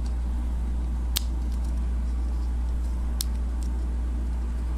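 Two sharp clicks of small plastic parts on a transforming cassette robot toy being moved by hand, one about a second in and one about three seconds in, over a steady low hum.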